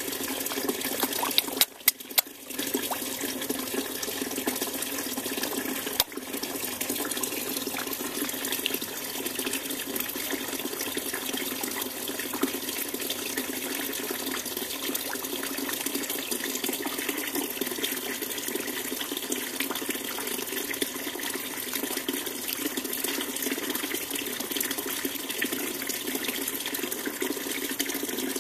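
Steady rush of running, splashing water. A few clicks and a brief drop come about two seconds in, and a single sharp click about six seconds in.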